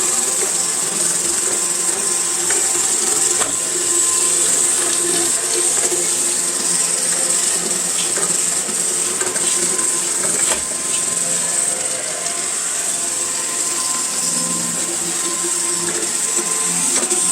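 iRobot Roomba i7 robot vacuum running with its side brush removed: a steady high whine from the suction fan over a low hum, with a few light clicks. It still has the rumbling noise the owner is trying to trace.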